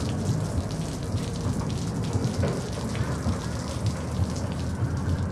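Steady ambient noise: a low rumble with a crackling, pattering hiss over it, either a vehicle running or rain.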